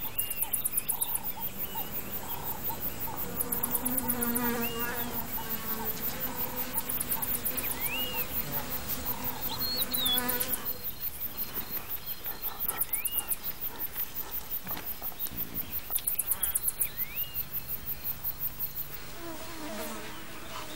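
Biting flies buzzing around a resting lioness, a low hum coming and going, over a steady pulsing chirp of insects with fast high ticking. A short high chirp rises and falls every few seconds.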